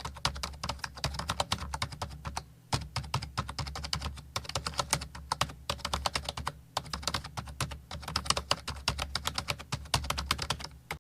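Typing on a typewriter: keys struck in quick runs of sharp clacks, with short breaks about two and a half and nearly seven seconds in, over a low steady hum.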